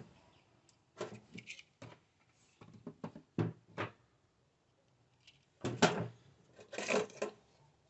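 A string of short clicks and knocks from handling spark plug wires and multimeter test probes while they are set down and picked up between resistance measurements.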